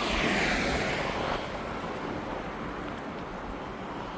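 A vehicle passing by: a brief hiss of road noise that fades out about a second and a half in, leaving a steady low outdoor rumble.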